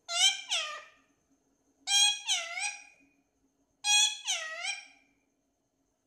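Indian ringneck parakeet calling: three calls about two seconds apart, each a short run of two or three high, swooping notes.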